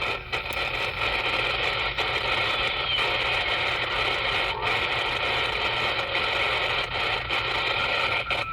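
CB radio receiver putting out steady static hiss and splatter, the channel swamped by interference (QRM) from a nearby station, with no readable signal coming through.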